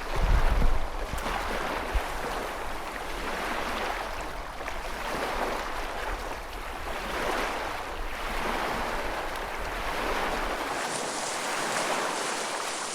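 Sea water rushing and washing, swelling and fading every second or two, with a low thump about half a second in. The low rumble underneath drops out near the end.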